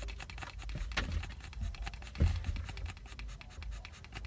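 Small Pomeranian dog panting rapidly with its tongue out, a quick run of short breaths, over the car's low steady hum. A single loud low thump about two seconds in.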